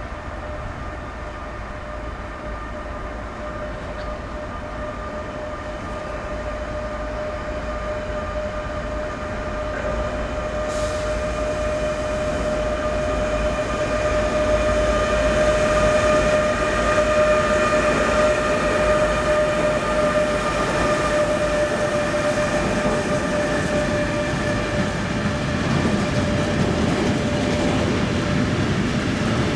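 Electric locomotive hauling a freight train of tank wagons, approaching and passing. The sound grows louder over the first fifteen seconds or so, with steady high tones over a rolling rumble. Near the end the heavier rumble of the tank wagons rolling by takes over.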